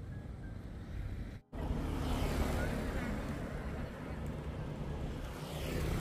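Road traffic going by on a roadside: a steady rumble of engines and tyres, louder from about a second and a half in.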